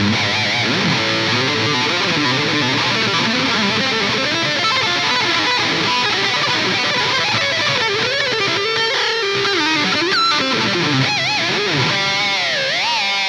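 Charvel Wildcart electric guitar played with distortion: a fast lead line of quick single notes with wide vibrato, sweeping up and down in pitch near the end.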